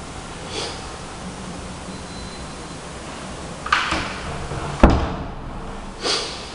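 Steady hiss with a few brief rustling swishes and one sharp thump, the loudest sound, a little past the middle.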